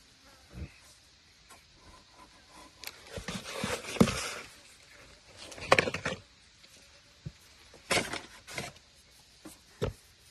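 Irregular knocks, clacks and short rustling or scraping handling noises, loudest about four and six seconds in, with sharper single knocks near eight and ten seconds.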